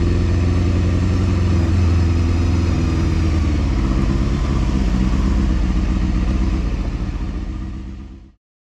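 Honda Hornet 250 inline-four motorcycle engine running steadily under way, heard from the bike, easing slightly after a few seconds and fading out near the end.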